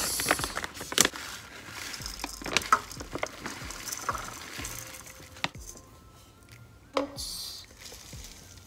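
Plastic pouch of instant oats crinkling and rustling as it is handled and a plastic measuring cup is scooped into it, with many small crackles and clicks. Near the end a short hiss as the dry oats are tipped into a plastic blender jar.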